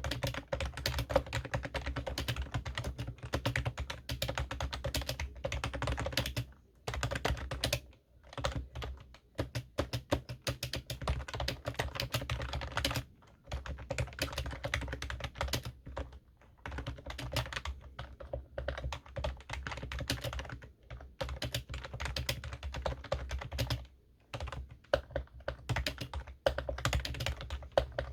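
Computer keyboard being typed on in fast runs of keystrokes, broken by several short pauses, over a low steady hum.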